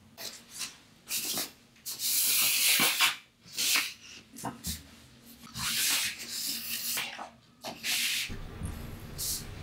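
Large sheets of drawing paper rustling and sliding against each other as they are handled and turned over in a portfolio, in a run of irregular swishes. Near the end they give way to a low steady hum.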